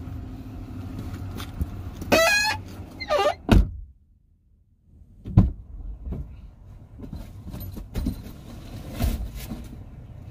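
Car sounds: a steady low rumble of engine and road noise, with a thump about three and a half seconds in. After a brief drop-out there are scattered knocks and thumps.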